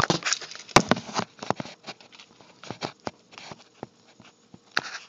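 Handling noise from a handheld camera and BB gun being moved about: rustling in the first second, then scattered sharp clicks and taps, with one louder click near the end.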